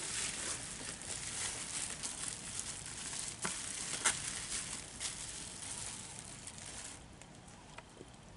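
Plastic bubble wrap crinkling and rustling as it is unwrapped from a carded toy, with a couple of sharper crackles about three and a half and four seconds in. It goes quieter after about seven seconds.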